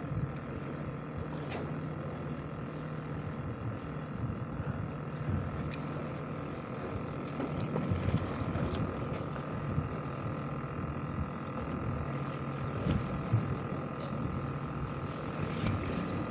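Steady drone of a fishing boat's engine, with wind and water noise over it and a few faint knocks.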